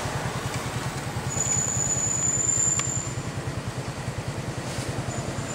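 Engine running at idle nearby, a steady low pulsing hum. A thin high steady tone sounds over it for about two seconds in the first half.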